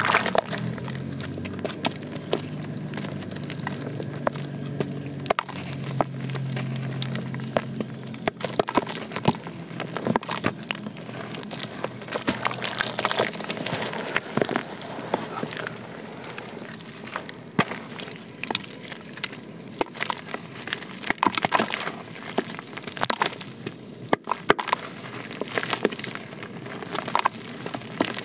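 Soaked lumps of pure white dirt being crushed by hand in a basin of water: a dense, irregular crackling and crunching as the lumps break, with crumbs dropping into the water.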